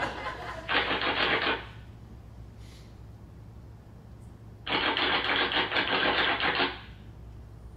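Typewriter keys clattering in two rapid bursts: a short one about a second in, and a longer one from about five to seven seconds in.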